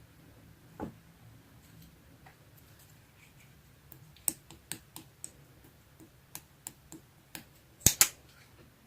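A scattered series of sharp clicks or taps: one about a second in, then a run of about eight irregular taps from around four seconds, ending in the two loudest taps in quick succession near the end, over a faint low hum.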